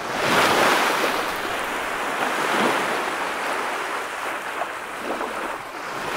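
Ocean waves washing, a steady rushing surf noise that swells up over the first half-second and eases off a little near the end.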